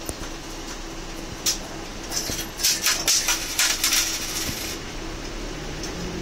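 Inside a city bus in slow traffic: the engine hums steadily while the cabin gives a run of sharp rattles and clatters over a few seconds in the middle. Near the end the engine note starts to rise as the bus pulls forward.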